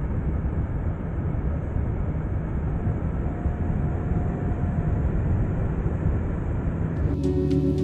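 Paramotor engine and propeller running in flight, a steady rough drone. Music comes in near the end.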